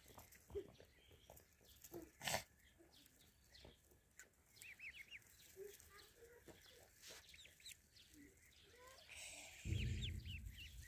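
Ducklings peeping softly in a huddle: clusters of short, high chirps, most about four to five seconds in and again near the end. Scattered sharp clicks, one louder about two seconds in, and a low rumble joins near the end.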